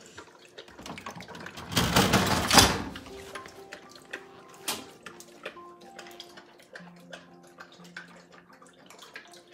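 English mastiff puppy lapping water from a metal bowl, a run of quick wet clicks and slurps, with a loud brief rush of noise about two seconds in.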